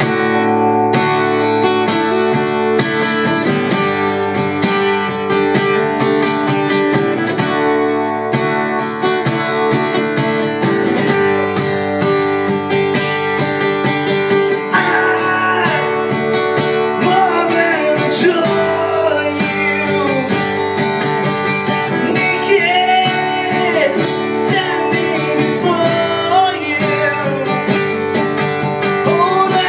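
Steel-string acoustic guitar strummed steadily in chords, with a man's sung melody over it from about halfway through.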